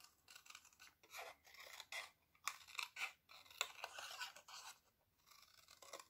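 Small paper snips cutting a curve through a strip of shimmer paper: a run of faint, short snips, with a brief pause about five seconds in.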